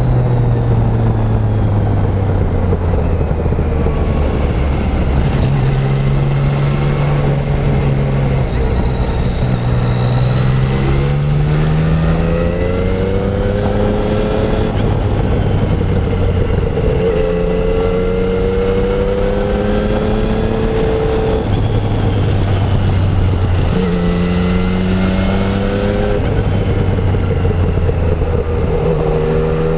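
Yamaha Tracer 900's 847 cc inline three-cylinder engine through its stock exhaust, heard from the rider's seat. Its pitch climbs under acceleration and drops back between gears, several times over, with no quickshifter.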